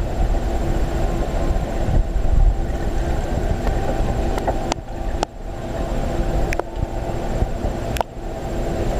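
Muffled underwater rumble picked up by an action camera submerged in its waterproof housing in a stingray touch tank, with a faint steady hum. Four sharp clicks come in the second half.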